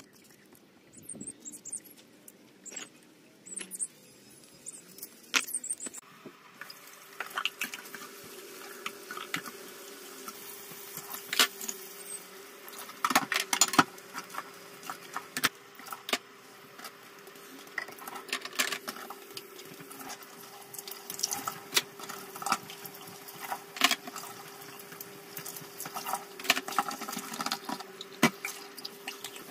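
A kitchen mixer tap runs into a stainless steel sink while dishes are washed by hand, with frequent clinks and knocks of plates, mugs and cutlery against each other and the sink. The water starts about six seconds in, with a steady hum under it.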